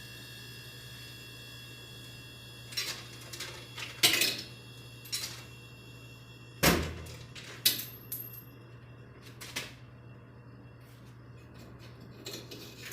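Coins clinking into and dropping through the coin mechanism of a 1964 Coke vending machine: a series of separate metallic clinks and knocks, the loudest with a dull thump about seven seconds in.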